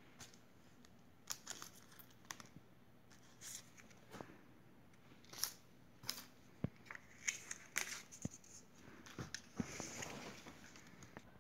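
Paper stickers being handled: scattered faint crackles and rustles of card and paper, with a longer tearing rustle about nine seconds in as a sticker is peeled from its backing.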